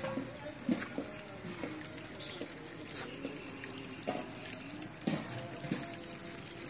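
Water splashing and gurgling in a brimming concrete-rimmed well, with small irregular splashes.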